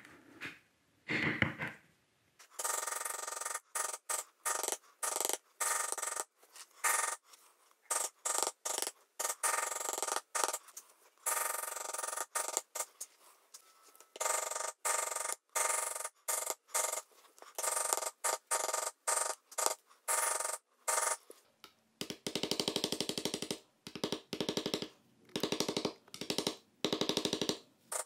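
Poly maul tapping a metal pear shader into tooling leather: quick runs of light, rapid strikes broken by short pauses, which grow denser and faster near the end.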